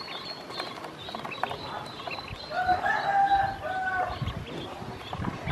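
Ducklings peeping and pecking at feed in a plastic basin, with many small clicks of bills on the plastic. About halfway through a longer bird call runs for over a second.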